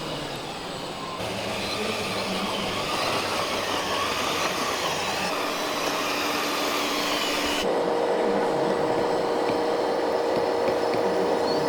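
Small electric motors and gearboxes of radio-controlled model trucks and tractors running with a steady whine. The sound changes abruptly twice, about a second in and again past halfway, where a different steady whine takes over.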